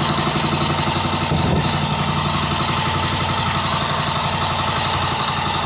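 Small fishing boat's engine running steadily at an even speed, a constant low hum with a fast, regular pulse.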